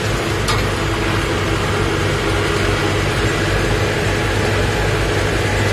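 Farmtrac 675DTN tractor's diesel engine running steadily as it tows trailers loaded with heavy bales at low speed. There is a single click about half a second in.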